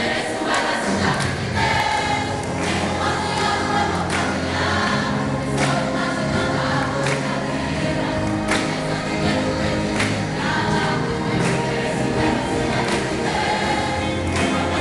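A youth choir singing a gospel song over a live band with a steady drum beat, heard through a phone's microphone in a large hall.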